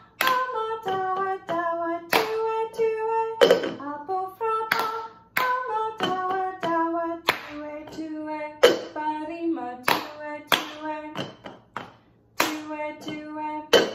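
Singing of a Twi-language song from Ghana, kept in time by a steady pattern of hand claps and plastic cups tapped and set down on a wooden floor. The singing breaks off briefly about two seconds before the end, then resumes with the claps.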